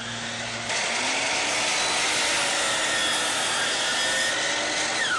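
DEWALT miter saw running and its blade cutting through crown molding laid flat on the table: a steady motor hum, then a loud even sawing rasp from about a second in. Near the end the cut finishes and the pitch falls as the motor winds down.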